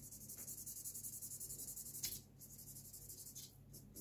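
Felt-tip pen scribbling back and forth on paper, colouring in: a fast, even run of faint scratchy strokes, with one louder stroke just after two seconds and sparser strokes after it.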